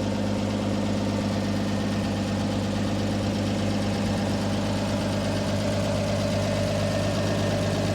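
Backhoe engine running steadily at idle.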